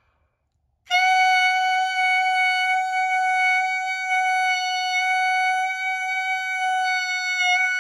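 Clarinet mouthpiece and barrel, blown without the rest of the instrument, holding one steady reedy note for about seven seconds. The note starts about a second in and stops near the end: a beginner's long-tone exercise, held as long as the breath lasts.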